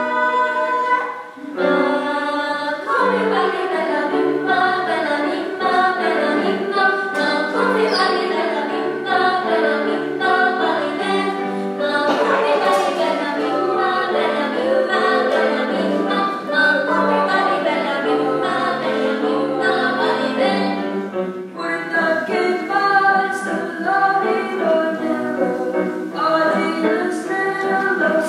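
Small mixed-voice student vocal ensemble singing a song in parts, with brief breaks between phrases about a second in and again about two-thirds of the way through.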